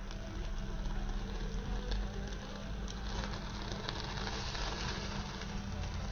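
Marinated chicken on skewers sizzling and crackling as it chars over an open gas-stove flame, with the burner's steady rush underneath and scattered crackles.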